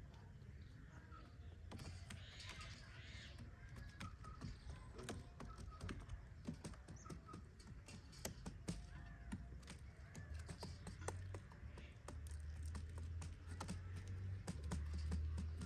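Birds calling outdoors in short chirps, with many scattered sharp clicks and taps, over a low rumble that grows louder near the end.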